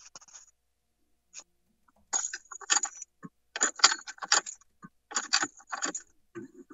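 Irregular clinking and rattling handling noise in several short clusters, starting about two seconds in, as small hard objects are fumbled.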